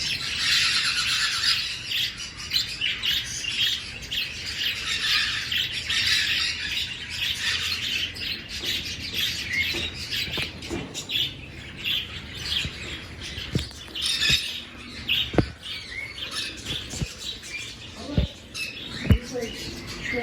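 A crowd of small aviary birds chirping and squawking together in a constant chatter, thinning a little in the second half, with a few short dull knocks near the end.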